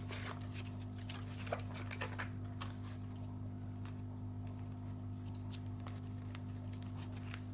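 A few faint light clicks and rustles from a canvas lock pick case being folded and handled, over a steady low electrical hum.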